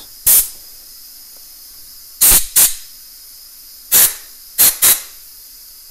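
Compressed air from an air-compressor blow gun, fired in six short blasts to blow out a small-engine carburetor's passages. A faint, steady hiss from the air compressor runs underneath.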